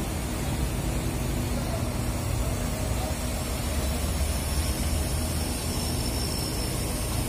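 Diesel coach buses idling in a row, a steady low rumble.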